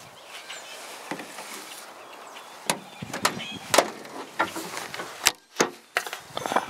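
A run of sharp clunks and knocks from the metal body of an old Mazda RX3 wagon being handled, about eight in all, starting about three seconds in.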